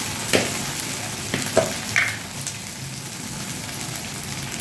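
A masala of cashew paste, ginger paste and ground spices sizzling steadily in oil in an aluminium kadai, with a few sharp clicks of a metal spatula against the pan in the first two seconds.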